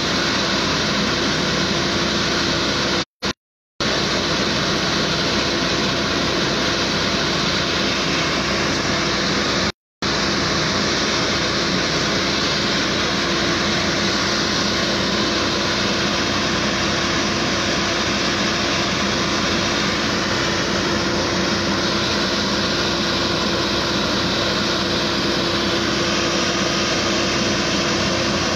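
Fire engine's engine and pump running steadily, a constant rushing noise with a steady hum through it. The sound cuts out completely twice, briefly about three seconds in and again about ten seconds in.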